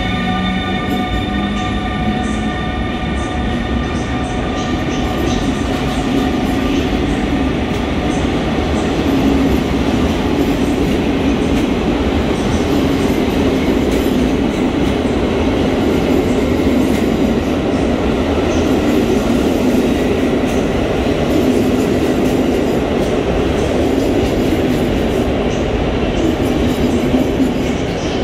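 Passenger coaches of a PKP Intercity train rolling out of an underground station platform and picking up speed: a steady rumble of wheels on rail that grows a little louder. A whine of several high pitches fades out in the first two seconds.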